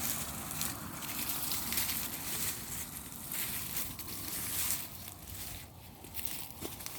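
Irregular rustling and crunching of wood-chip mulch and sweet potato vines being pulled and dug through by hand.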